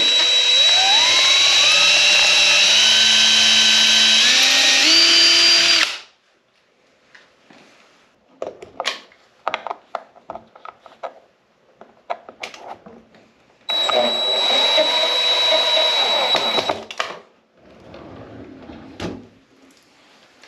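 Cordless drill boring a hole through a wooden cabinet door via the jig's drill guide, running for about six seconds with its whine climbing in steps, then stopping. Light clicks and handling noises follow, then the drill runs again for about three seconds.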